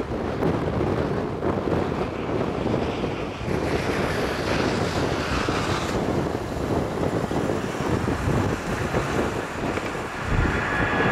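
Wind buffeting a camcorder's built-in microphone in uneven gusts. Near the end a jet aircraft's engine noise begins to build.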